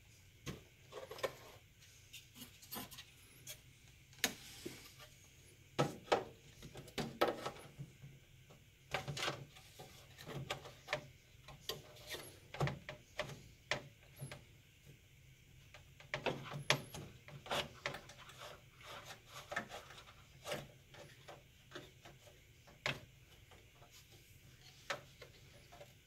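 Irregular light knocks, clicks and scrapes as a motherboard is shifted about inside a PC case, its edge and ports rubbing against the metal I/O shield and case while it is lined up over the standoffs.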